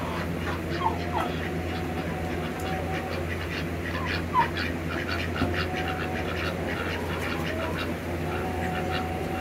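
Ducks and turkeys in a pen giving a few short high calls, with a run of quick clicks and rustles in the middle, over a steady low hum.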